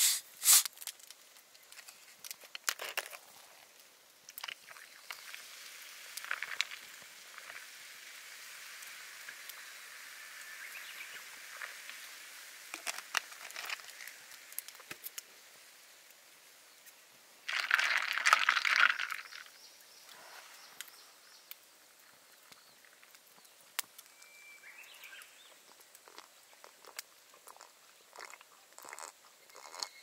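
A highball being made over ice in a camping mug: ice clinks, then soda pours onto the ice with a steady hiss and crackle as it foams up. A louder splash of pouring comes a little past halfway, and the carbonation keeps fizzing and ticking on the ice afterwards.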